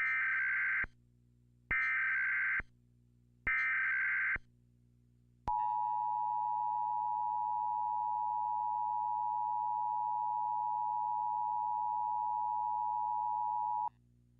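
Emergency Alert System SAME header: three short identical bursts of buzzy digital data tone, each just under a second, then the EAS two-tone attention signal, a steady dual-pitch tone held for about eight seconds and cut off sharply. Together they mark the start of an emergency alert, here a national test.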